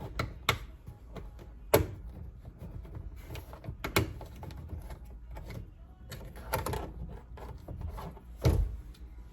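Plastic interior door trim pieces being pried and unclipped from a truck door, giving irregular sharp clicks and snaps, loudest about two seconds in and near the end.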